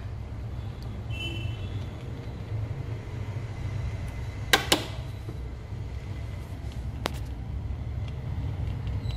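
A steady low rumble, with a sharp double click about four and a half seconds in and a fainter click about seven seconds in.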